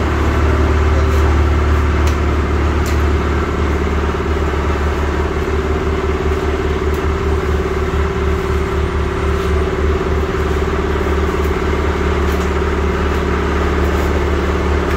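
A steady, loud mechanical drone of an engine or motor running without change, with a strong low hum and a constant pitched note. A few faint light ticks, like a knife tapping a wooden chopping block, sound over it.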